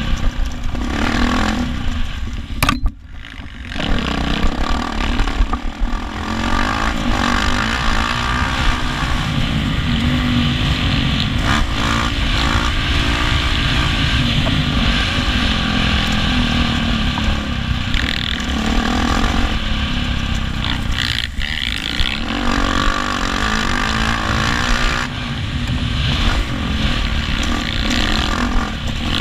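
450cc four-stroke motocross bike ridden hard on a dirt track, the engine revving up and down between gears, with wind rush on the helmet-mounted microphone. The engine sound drops away sharply for about a second, roughly three seconds in.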